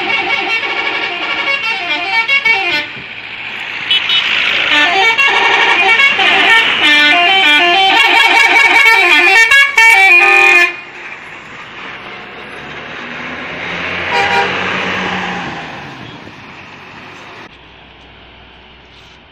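Bus 'telolet' multi-tone horn playing a fast tune of stepping notes, a short run and then a longer one that cuts off about ten seconds in. Afterwards the bus goes by, its engine and road noise swelling and then fading.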